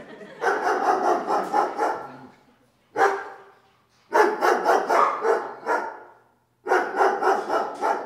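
A dog barking in quick runs: three bursts of about five barks a second, each lasting a second and a half or so, with a single bark between the first two.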